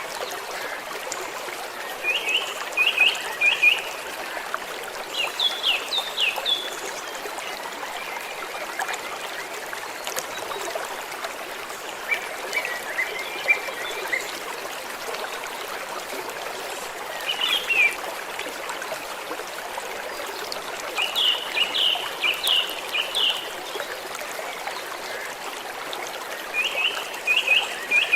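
Small stream trickling steadily, with birds chirping short runs of quick high notes every few seconds.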